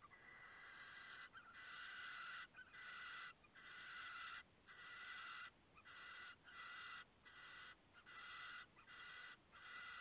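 Barn owl chicks giving their hissing, snore-like begging calls, one long hiss after another with short breaks about once a second. The sound is faint.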